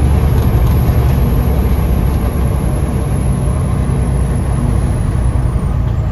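Loaded heavy truck's diesel engine running under way, heard from inside the cab as a steady low rumble, with a faint high whine that fades out near the end.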